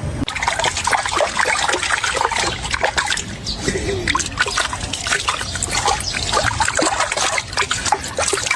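Water trickling and splashing, a dense run of small irregular splashes and drips over a steady low rush.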